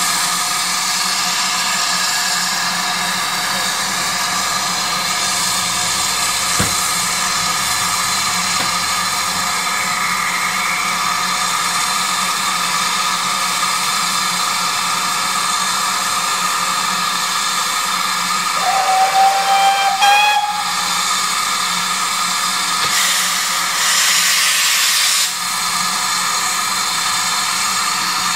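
Steam locomotive hissing steadily as it blows off steam. About two-thirds of the way through, its whistle sounds once for about two seconds. A few seconds later comes a louder rush of steam.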